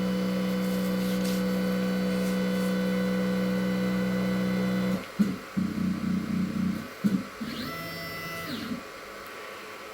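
Stepper motors of a modified X-Carve CNC router driving its axes: a steady hum that cuts off about five seconds in, then a few short jerky moves and a whine that rises, holds and falls, as the machine homes and brings its spindle to the front.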